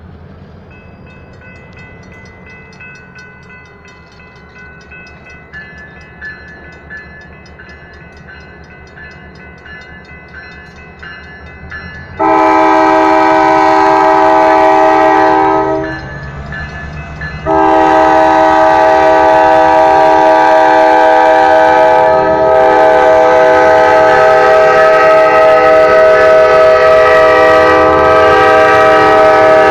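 Railroad crossing bell ringing fast and steadily at an active grade crossing. About twelve seconds in, an approaching SJVR diesel locomotive's air horn sounds one long blast lasting several seconds. After a brief pause it sounds a second, sustained blast that carries on over the bell as the train reaches the crossing.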